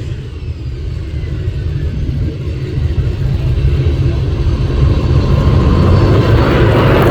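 Norfolk Southern mixed freight train's cars rolling past with a steady low rumble, swelling louder with a rushing noise near the end.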